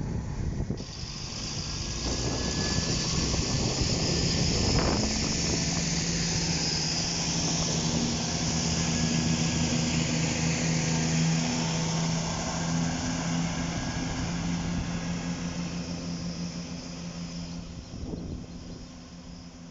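A diesel train passing by. A steady low engine drone with a held hum over rushing noise grows louder over the first couple of seconds, holds, then fades away over the last several seconds.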